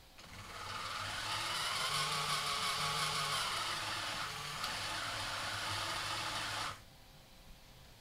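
Small DC gearmotors with yellow plastic gearboxes on a robot car, whirring as they drive its wheels under joystick control. The whir starts just after the beginning, runs steadily, and cuts off suddenly near the end.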